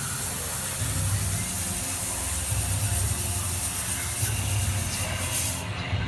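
Fog machine spraying with a steady hiss that cuts off suddenly near the end, over background music.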